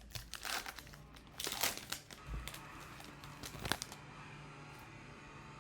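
Foil trading-card pack wrappers crinkling and tearing as packs are handled and opened: an irregular run of crackles that stops about four seconds in.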